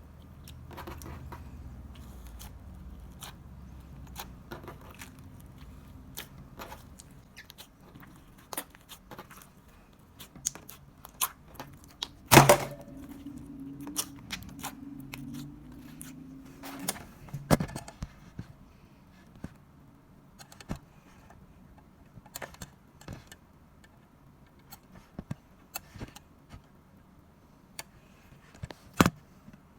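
Slime being squeezed and stretched by hand, giving irregular sharp clicks and pops of trapped air; the loudest pop comes about twelve seconds in.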